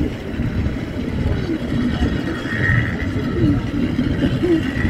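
Steady low rumble of the water-powered cliff railway car running along its steep rails, with a brief higher tone a little before the middle.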